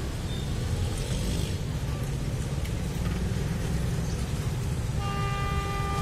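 Low steady rumble of road traffic. About five seconds in, the level crossing's electronic warning siren switches on abruptly as a steady, unwavering multi-tone sound.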